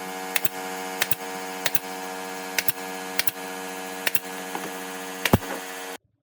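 A steady machine hum with sharp, irregular clicks and knocks over it; the hum stops suddenly near the end.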